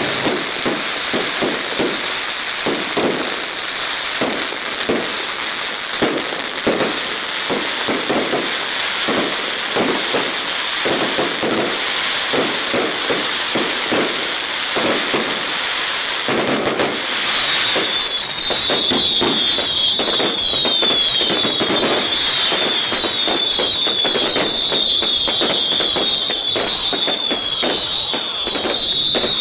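Daytime fireworks: a dense barrage of rapid bangs and crackling. About two-thirds of the way in, many overlapping whistling fireworks join it, each a quick falling whistle, repeating over the bangs.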